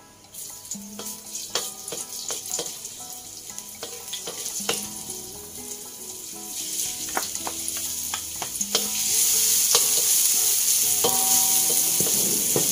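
Garlic and ginger sizzling in hot oil in a wok, with a wooden spatula and scraper knocking and scraping against the metal. The sizzle starts as the garlic drops in and grows louder about nine seconds in.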